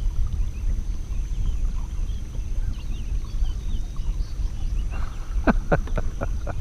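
Outdoor ambience at a pond: a steady low rumble with faint bird chirps, and a quick run of about five sharp clicks near the end.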